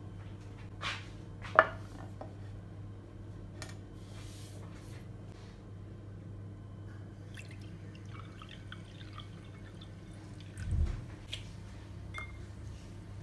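Light clicks and taps of glassware on a countertop, with a soft low thump near the end and a few small clicks at the water glass, over a steady low hum.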